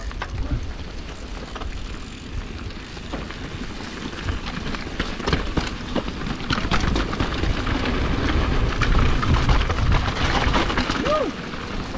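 Mountain bike rolling fast down a loose, rocky trail: tyres crunching over gravel and stones, with many sharp clicks and rattles from the bike, under a heavy wind rumble on the microphone. It gets louder about halfway through as the pace picks up.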